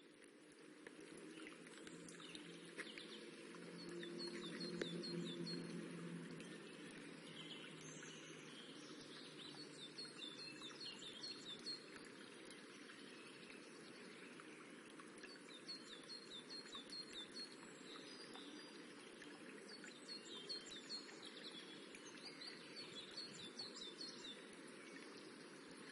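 A rippling stream's steady water sound, with a small bird singing short runs of quick falling high notes every few seconds. A low rumble swells and fades about four to six seconds in.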